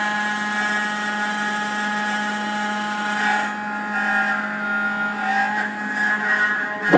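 Spindle of an N-Gravetek Y4S desktop CNC engraving machine running with a steady hum and whine as its cutter engraves a block. The higher hiss of the cut thins out about halfway through.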